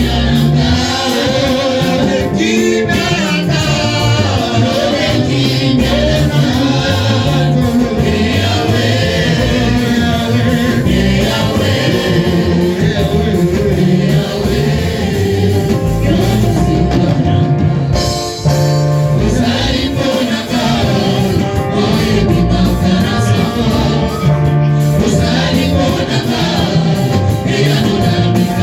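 Gospel music: a choir singing over a band, with a bass line stepping between notes and a steady drum beat.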